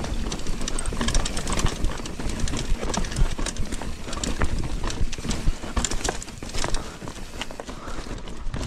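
Mountain bike ridden over a rough dirt trail: an irregular clatter of knocks and rattles from the bike hitting bumps, over a constant low rumble.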